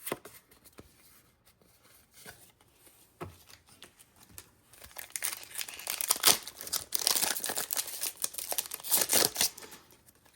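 A few light taps and handling clicks, then from about halfway a foil Pokémon booster pack wrapper is torn open and crinkled for several seconds.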